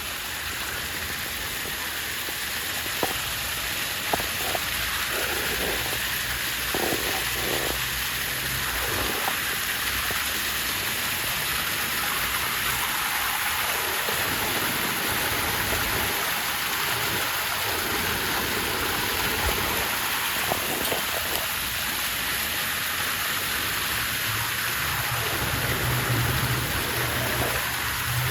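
Waterfall: falling water splashing in a steady hiss, with a few faint clicks of drops.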